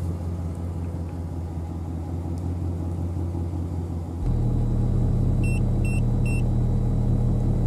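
A low steady rumble; about four seconds in, a 40 Hz test tone starts through a pair of Memphis Audio MB1224 12-inch subwoofers in a sealed box and holds steady, much louder, while the amp puts out about 61 volts. Three short high beeps come from the multimeter about a second after the tone starts.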